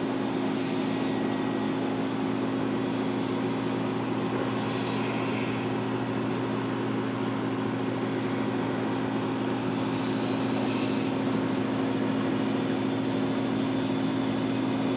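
Steady electric motor hum, a low mains buzz with several overtones that holds unchanged throughout, with a faint hiss behind it.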